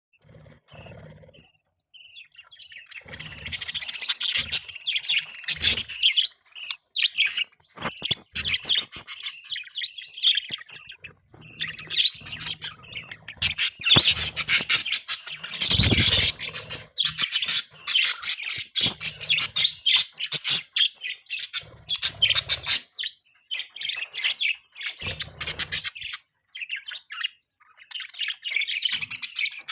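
Budgies chirping and warbling, many rapid high chirps overlapping almost without pause, with brief lulls.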